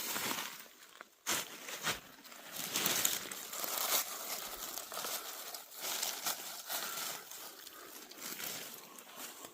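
Dry leaves and forest litter rustling and crunching in a dense run of crackles, with a short pause about a second in.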